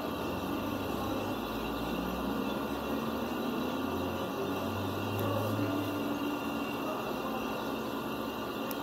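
Steady background noise: an even hiss with a faint low hum that swells a little about four to six seconds in, and no distinct knocks or clicks.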